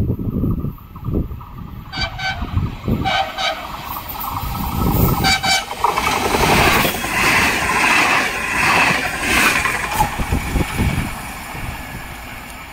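Electric regional train giving three short horn blasts as it approaches, about two, three and five seconds in, then running past the platform with loud rolling wheel noise that fades away near the end.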